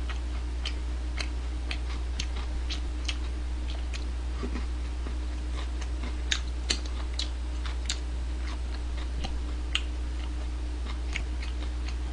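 Close-miked chewing of fried chicken: irregular small crunches and clicks, several a second at times, over a steady low electrical hum.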